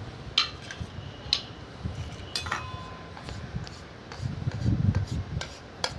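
Scattered sharp clinks of stainless steel plates and bowls being handled and set down, one ringing briefly, with low handling noise in between.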